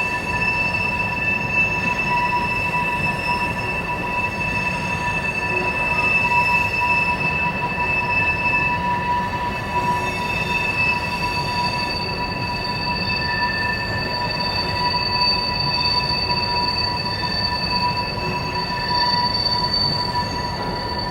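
Freight train's tank cars rolling past with a steady rumble and a continuous high wheel squeal made of several held tones.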